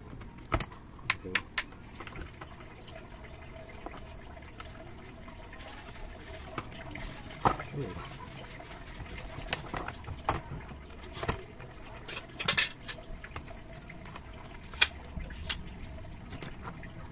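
Scattered clicks and knocks of hard plastic and metal parts as a pressure washer's motor and pump assembly is handled and seated in its plastic housing, with a faint steady hum underneath.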